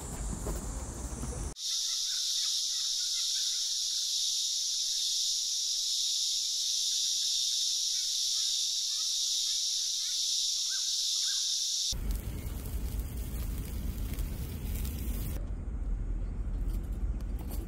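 A steady, high-pitched chorus of summer insects, starting and cutting off abruptly at edits, with faint chirps underneath. It is framed by broad outdoor noise with a low rumble before it and after it.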